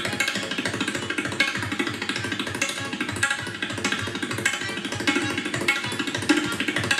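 Tabla played very fast, a dense, even stream of strokes, over a sustained melodic accompaniment.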